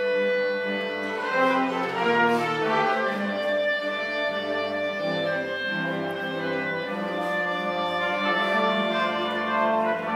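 A small amateur orchestra of violins and other bowed strings with brass playing together, holding sustained chords that change every second or two at a steady level.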